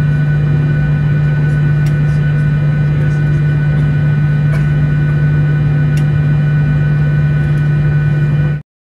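Steady drone of an airliner cabin, the engines and air-conditioning making a loud, even hum with a strong low tone, with a few faint ticks. It cuts off abruptly near the end.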